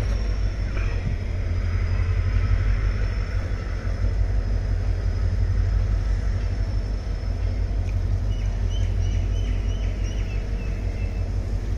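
Indian Railways sleeper coaches rolling slowly past, a steady low rumble. A thin steady high whine runs under it, and a run of short high chirps comes about eight to eleven seconds in.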